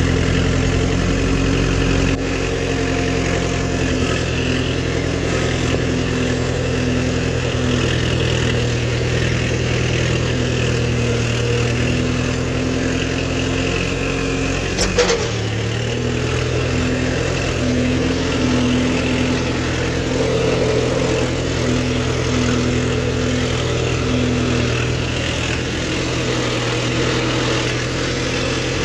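Kubota MU4501's four-cylinder diesel engine running steadily under load, pulling an 11-tine cultivator through the soil. A single brief knock sounds about halfway through.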